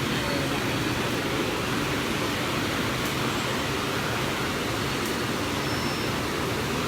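Automatic PP woven-bag cutting and sewing machine running, a steady mechanical noise with no distinct rhythm.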